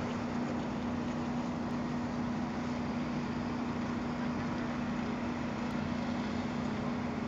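Steady motor hum with one constant low tone, unchanging throughout.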